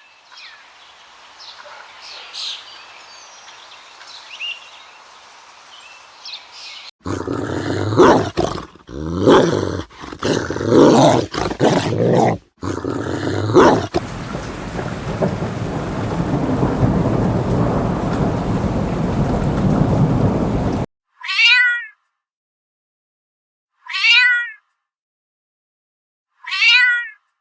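A run of separate animal and nature recordings. First comes faint outdoor ambience with a few chirps, then a cat meowing again and again for several seconds. Next is about seven seconds of steady rain with thunder, which cuts off suddenly. Last, three short calls, each falling in pitch, come about two and a half seconds apart.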